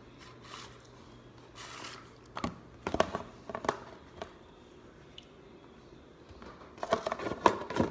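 A hand squishing and scooping a tub of crushed Orbeez water beads, with sharp clicks and knocks of the plastic tub and its lid, a cluster about three seconds in and more near the end.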